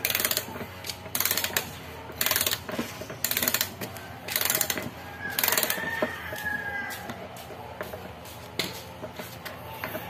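Threaded metal cylinder cap of a gearshift servo (power shifter) being unscrewed by hand, giving short scraping rasps about once a second that thin out in the second half. A rooster crows in the background around the middle.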